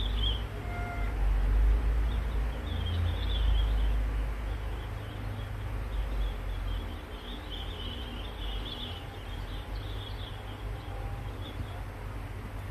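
Small birds chirping in irregular clusters of short, high calls, busiest near the start and again past the middle. Under them runs a low rumble, louder in the first few seconds.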